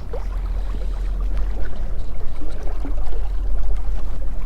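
Steady low wind rumble on the microphone over flowing river water, with a few faint small ticks and splashes.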